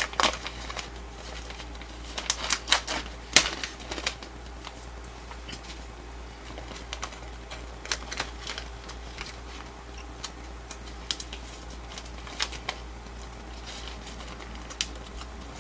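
Plastic snack bag of jerky being handled and opened: scattered sharp crinkles and clicks, with a cluster of louder ones in the first few seconds and then sparser, fainter ticks.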